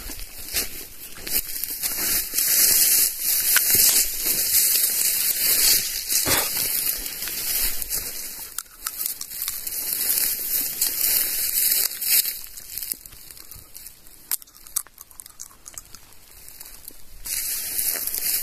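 Footsteps crunching and swishing through dry grass and brush, with dry stems crackling. The crunching eases off for a few seconds in the later part, then picks up again near the end.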